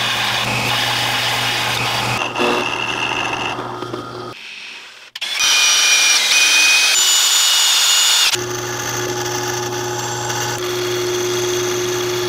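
An electric belt sander grinding a small metal part for the first few seconds, then, after a short break about five seconds in, a drill press boring into an aluminium block. The bit squeals in the metal at first, then cuts more steadily over the motor's hum.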